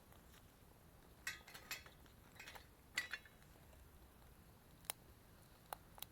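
A few faint, scattered clicks and clinks over a quiet background, the loudest about three seconds in.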